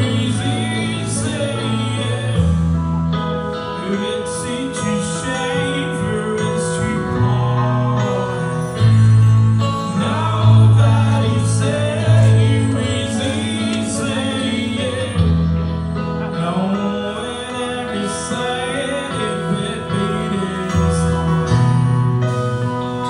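Live band music: electric guitar and keyboard over deep bass notes that change every few seconds, with a voice singing.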